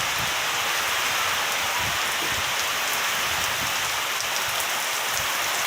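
Heavy downpour: a steady hiss of pouring rain with scattered sharp ticks of drops.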